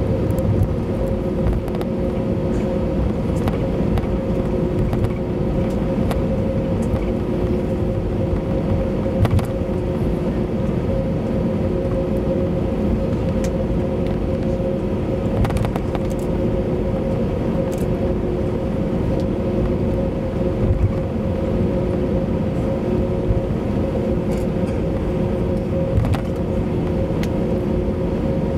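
Cabin noise of an Airbus A321-200 taxiing on the ground: a steady hum and rumble of the engines at idle, with two strong held tones. A few light clicks sound now and then.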